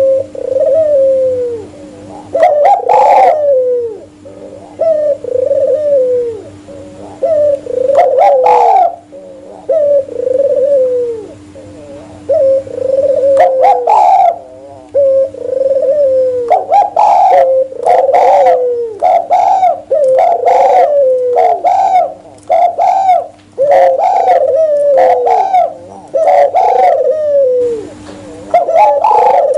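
Spotted doves and albino ringneck doves cooing: a near-continuous run of falling coo notes, about one a second, with louder, harsher calls coming in clusters, most densely in the second half. A faint steady hum lies under the calls.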